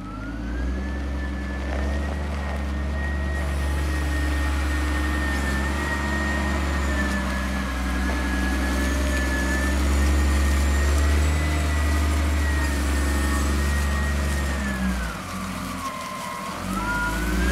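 Caterpillar 950G wheel loader's diesel engine running as the machine drives, with a deep steady rumble and a high whine that follows engine speed. About fifteen seconds in, the engine eases off and the whine drops, then it picks up again just before the end.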